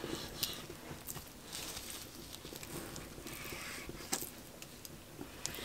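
Faint kitchen work sounds: a knife tapping and scraping on a cutting board as raw chicken breast is cut, with a few scattered clicks.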